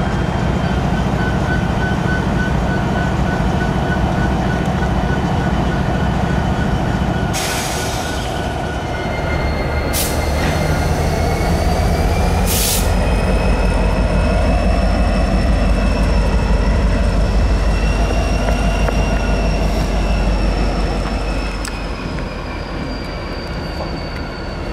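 Diesel freight locomotive moving slowly, its engine giving a steady deep rumble. From about nine seconds in, the wheels squeal on the rails in a thin, wavering high tone, and three short hissing bursts come between about seven and thirteen seconds.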